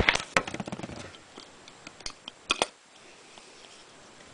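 Scattered clicks and knocks of metal and wood parts: a side-by-side shotgun's action being handled and fitted onto its wooden stock. A quick run of clicks comes at the start, then a few single knocks spaced out over the next couple of seconds.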